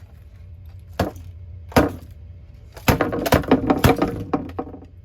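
Sharp knocks and cracks of a cheap plastic alarm clock radio being whacked and broken apart: two single hits about a second apart, then a quick run of hits and rattling parts about halfway through.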